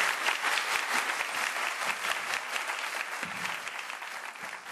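Audience applauding, a dense patter of many hands clapping that fades steadily away.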